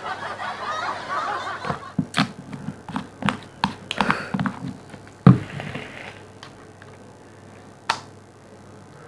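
A breathy exhale of vapour, then a run of small clicks and knocks from handling a vape box mod and a liquid bottle. The loudest knock comes a little past halfway, and a last single click comes near the end.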